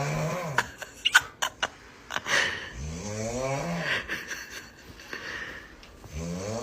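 Snoring: three long pitched snores about three seconds apart, each rising and then falling in pitch, with a few short clicks between the first two.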